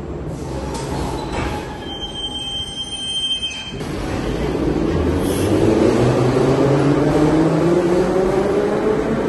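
Moscow Metro train in a station, with a brief high squeal about two seconds in. From about four seconds in its traction motors whine, rising steadily in pitch as the train pulls away and gathers speed.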